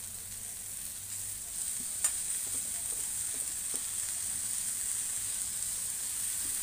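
Onions and green chillies frying in oil in a steel pan: a steady sizzle, while handfuls of chopped fenugreek leaves are dropped in on top. One sharp click about two seconds in.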